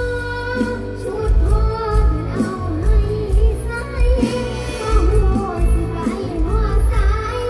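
A young girl singing a mor lam song into a microphone over a live band with a heavy, steady bass beat.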